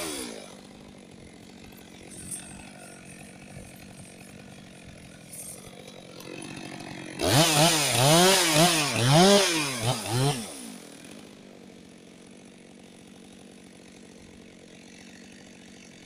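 Stihl chainsaw idling, then about seven seconds in revving up and down in a quick series of blips for about three seconds as it cuts branches off a felled conifer, then dropping back to idle.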